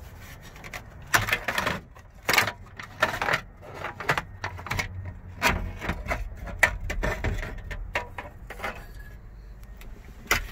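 Plastic instrument-cluster bezel of a 1997 Ford F-150 being worked free of the dash and handled: an irregular run of plastic clicks, snaps and knocks as the trim and its clips come loose.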